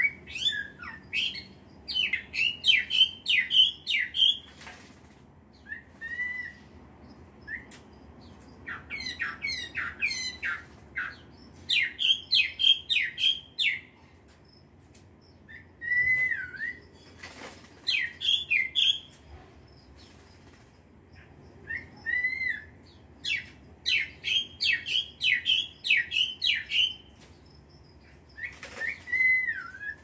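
Small caged songbird calling in repeated runs of quick, sharp chirps, each run a second or two long. A few brief bursts of wing-flapping come between them as it bathes in its water tray.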